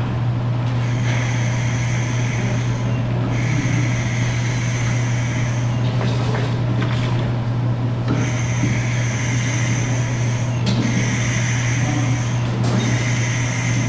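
Air hissing, with a whistling edge, into the open air port of a two-post lift's hydraulic cylinder as the ram is pulled out. It comes in several stretches of about two seconds, with short breaks between, over a steady low hum.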